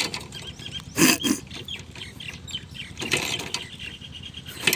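Rajdoot motorcycle being kick-started with its ignition key left off: kicks on the kick-starter about two seconds apart, and the engine does not catch.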